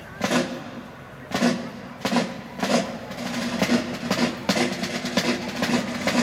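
Military field drums playing: a few strong, widely spaced hits in the first seconds, then a faster, steady cadence from about halfway through.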